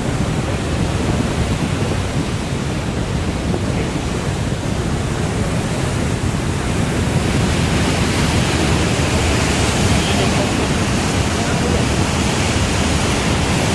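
Steady rush of water pouring through a dam's gates below, with wind on the microphone; the hiss gets brighter about halfway in.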